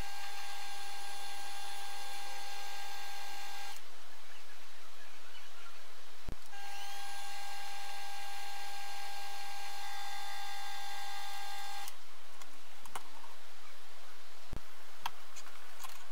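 Optimum mini lathe running with a steady high whine. The whine stops after about four seconds, comes back with a short rising spin-up about two seconds later, and stops again about twelve seconds in, followed by a few sharp clicks.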